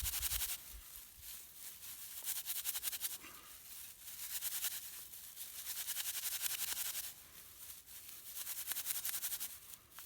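A Victorinox knife blade scraping a piece of vine into fine tinder fibres. It comes as fast, even strokes in about four bouts with short pauses between them.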